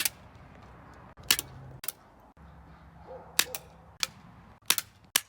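Small spring-powered airsoft pistol being fired shot after shot: about six sharp snaps at uneven gaps, with faint clicks between them.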